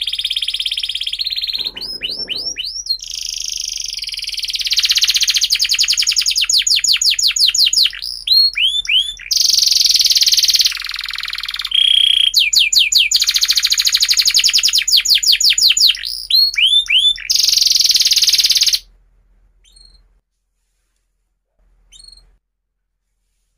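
Domestic canary singing a long, continuous song of fast rattling trills and quick swooping notes, high-pitched and loud. The song stops abruptly about 19 seconds in, leaving only a few faint short chirps.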